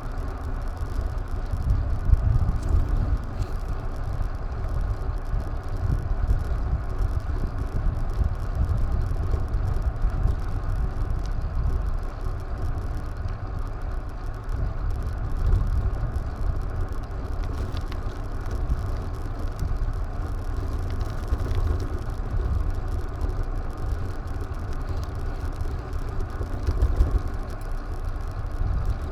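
Wind buffeting an action camera's microphone while riding, a gusty low rumble over steady road and tyre noise.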